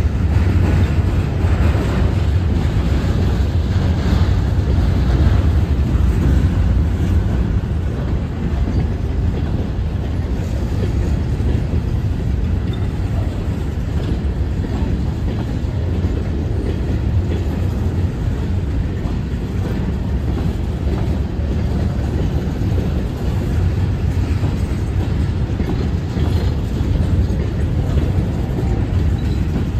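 Loaded hopper cars of a stone freight train rolling past at a grade crossing: a steady, heavy, low rumble of steel wheels on the rails that keeps on without a break.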